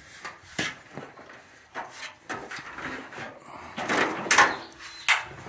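A few sharp knocks and a longer scraping, rattling noise about four seconds in: handling sounds of an aluminium ladder being shifted and climbed, with the phone recording it held in hand.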